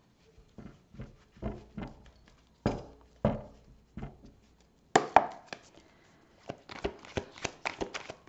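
A deck of oracle cards handled and shuffled by hand: several separate knocks and taps, then near the end a quick run of light clicks about four a second.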